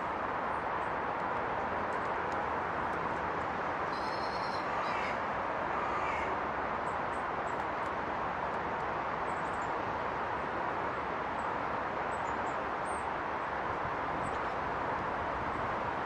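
Steady rushing of a river, with a bird calling several times between about four and six seconds in and faint high chips scattered through.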